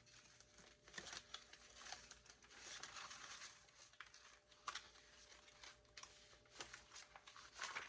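Faint rustling of loose scrap paper being handled, with a few light taps and clicks.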